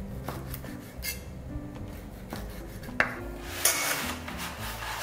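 Background music with steady, stepping notes, over kitchen sounds: a sharp knock of pots or dishes about three seconds in, then a short rushing hiss.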